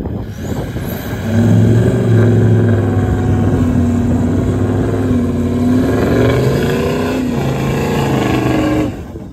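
Toyota LandCruiser ute's engine revving hard under heavy load, towing a camper trailer through soft sand on deflated tyres with the wheels spinning. The engine note climbs about a second in, holds loud with a wavering pitch, and drops away near the end.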